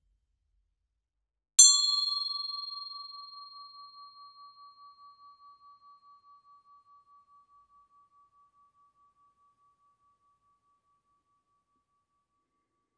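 A single high-pitched bell ding: one sharp strike about a second and a half in, then a clear ringing tone that fades slowly over several seconds, wavering in a steady pulse as it dies away.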